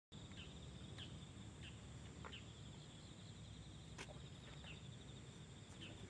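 Faint outdoor ambience of insects trilling steadily at a high pitch, with a few short, high, downward-sliding bird chirps every second or so and one sharp click about four seconds in.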